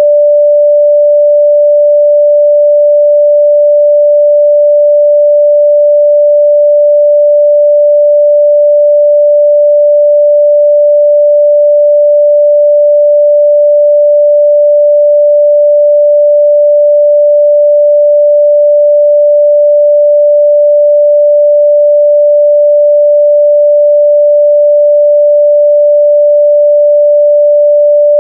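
Continuous 588 Hz sine-wave test tone, a loud pure steady hum that holds unchanged at one pitch.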